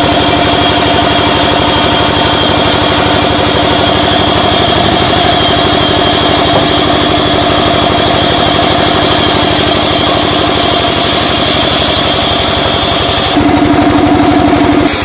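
Vertical band sawmill running and sawing a timber beam, a loud, steady mechanical drone with a fast, even pulse. Near the end the higher tone drops away and a lower hum grows louder.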